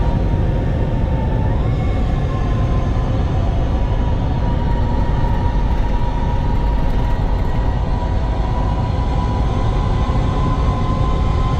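In-cabin sound of a Hyundai Ioniq 5 N electric car driven at speed: heavy, steady road and tyre rumble under a high whine. The whine steps up in pitch about one and a half seconds in, then slowly climbs.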